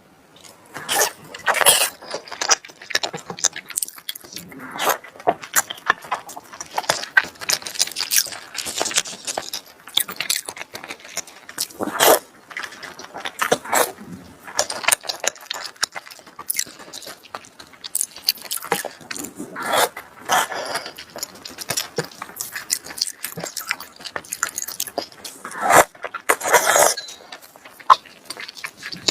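Eating sounds of seafood: wet chewing and mouth smacking, with many irregular clicks and crackles, some louder bursts spread through.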